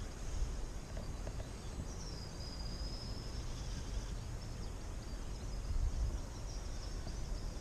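Outdoor lakeside ambience: a steady low rumble of wind on the microphone with faint, high bird calls, including a thin whistle about two seconds in that lasts about a second.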